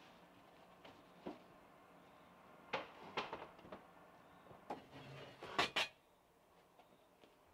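Knocks and clunks of the rear bench seat inside a VW Beetle being handled and tilted forward: a scattered series of sharp knocks, the loudest two close together near the end.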